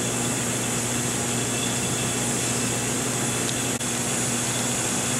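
Vacuum pumps of a reflow oven running steadily as the process chamber is pumped down, with the turbo pump taking over from the roughing pump: an even mechanical hum.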